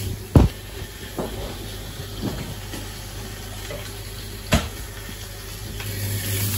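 Steady low hum and hiss of kitchen background noise, with a sharp knock about half a second in and another about four and a half seconds in, as the phone recording it is handled and carried.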